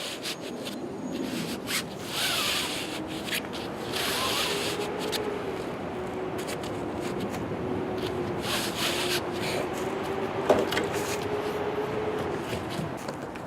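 Rubbing and scraping with scattered clicks and short rustles as a window shade and its braid trim are handled and pressed together while the contact cement bonds. A faint steady hum runs under the middle and later part.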